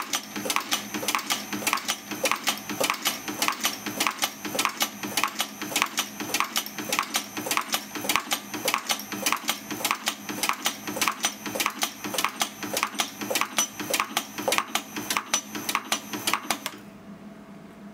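Eminence Manufacturing 6K commercial bullet sizer running at full speed, about 6,100 projectiles an hour, clacking in a fast, even rhythm as it sizes 9mm projectiles. The clacking stops about 17 seconds in as the machine is stopped, leaving a faint steady hum.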